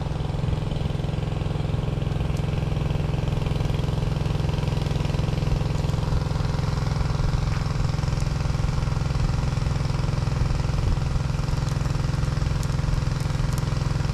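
Small engine running steadily at a constant speed, as one driving a water pump to drain a fishpond.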